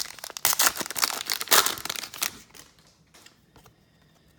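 Foil trading-card pack wrapper being torn open and crinkled, a dense crackling for about two seconds that then dies down to a few light clicks.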